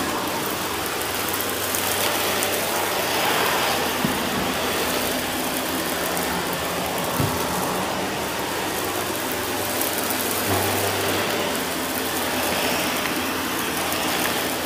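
Shark Navigator upright vacuum running on carpet and sucking up crunchy debris, with a few sharp clicks as bits are drawn in.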